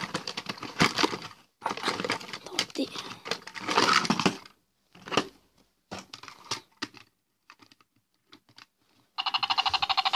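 Cardboard box and plastic packaging rustling and crinkling as a toy helicopter is pulled out, then a few light clicks. About nine seconds in, the toy helicopter's battery-powered sound effect switches on: a fast, evenly pulsing electronic tone.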